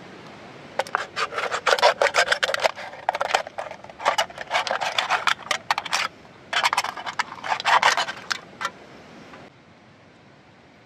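A hand tool scraping on wood in quick, rapid strokes, in three bursts of about two seconds each, over a steady rushing background.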